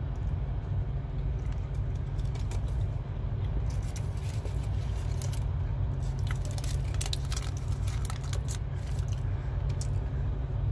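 Crinkling paper sandwich wrapper and a person chewing, over a steady low rumble. The crackles of the paper come mostly in the middle of the stretch.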